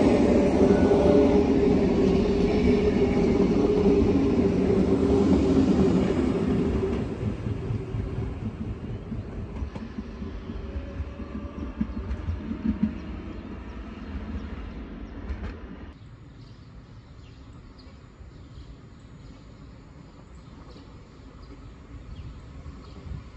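Electric multiple unit of the German class 424/425/426 family running past close by and then pulling away. It is loud with a steady pitched hum at first, then fades over about ten seconds, with a few faint high squeals along the way.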